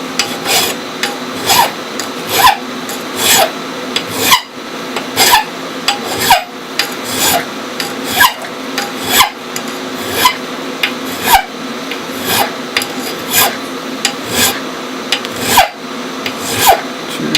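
Hand file rasping across the edge of an aluminum flat bar in steady strokes, about one a second, rounding the edge.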